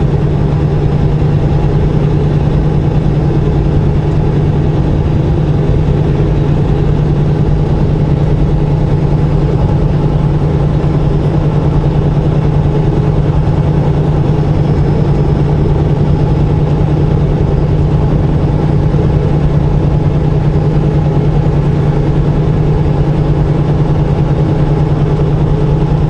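Semi truck's diesel engine running steadily at highway cruising speed, heard from inside the cab: a constant low hum over road noise.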